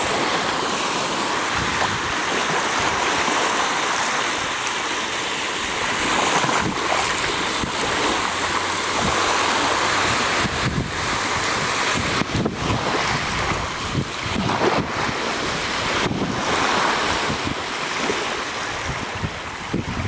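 Surf breaking and washing up the shore in a continuous rush, with gusts of wind buffeting the microphone.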